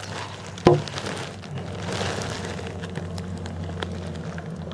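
A sudden loud hit about half a second in, followed by a steady crackling rush of noise over a low hum.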